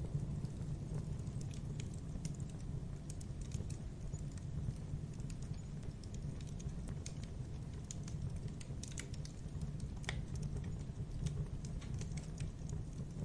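Wood fire burning in a fireplace: a steady low roar of flames with irregular sharp crackles and pops from the burning logs.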